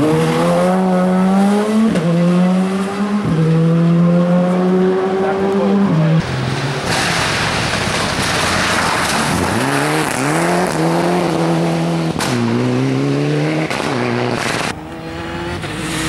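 Rally car engines accelerating hard, the pitch climbing and dropping back at several quick upshifts. A rush of noise comes midway as a car passes close, then another car revs up through its gears.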